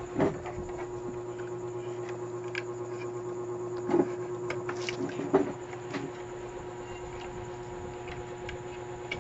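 Hands handling a CRT TV chassis and its wiring on a workbench: a few sharp knocks and clicks, the loudest near the start, about four seconds in and about five and a half seconds in, over a steady electrical hum.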